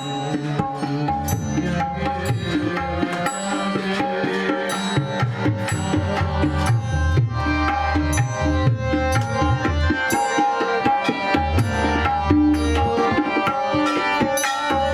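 Instrumental passage of a devotional bhajan: tabla-style hand drums keeping a quick rhythm under a melody instrument and steady held tones.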